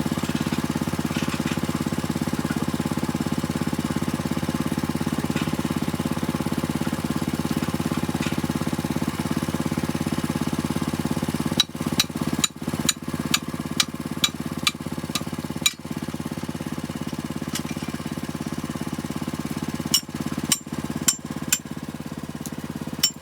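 Small engine of the deep-well drilling rig running steadily at a constant speed. About halfway in, sharp clicks and short breaks begin cutting through it.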